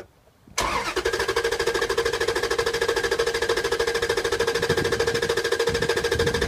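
Starter motor cranking a Dodge 4.7-litre V8 over with the throttle held wide open during a compression test. The cranking starts about half a second in and runs steady with a fast, even pulsing and a whine from the starter.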